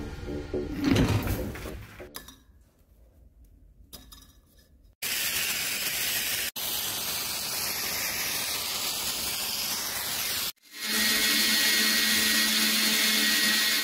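Music fading out, then from about five seconds in a gas torch flame hissing steadily as it heats a coil of silver wire. From about eleven seconds a lathe runs with a steady hum, turning a mandrel that winds the silver wire into a coil.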